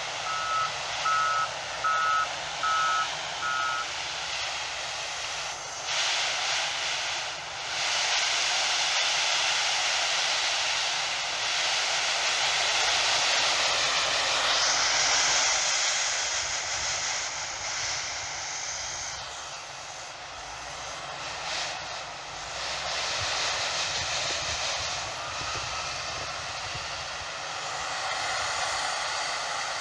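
A reversing alarm beeps a handful of times in quick succession at the start. Then the diesel engines of a Ford Cargo 1848T tipper tractor and a wheel loader run together as a steady rushing noise that swells and eases while the raised tipper body empties.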